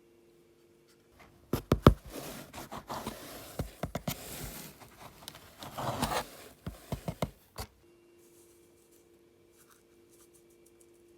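Close handling noises: rustling with a string of sharp clicks and knocks for about six seconds, over a faint steady hum that is heard before and after.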